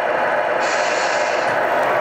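Scale RC semi-truck's electronic sound module playing a running diesel truck engine. A high-pitched sound joins it for about a second near the middle.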